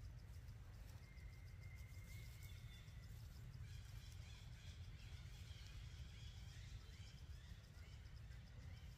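Near silence: faint outdoor ambience with a steady low rumble and faint, thin high calls, one held whistle about a second in, then a warbling stretch in the middle.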